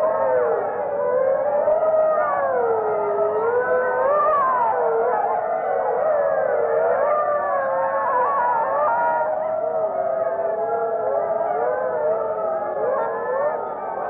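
A wolf pack howling in chorus: many voices overlap, each sliding up and down in pitch.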